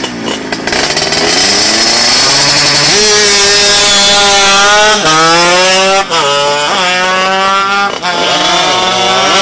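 Tuned Vespa scooter engine at full throttle on a drag run, its pitch climbing through each gear and dropping sharply at several gear changes in the second half.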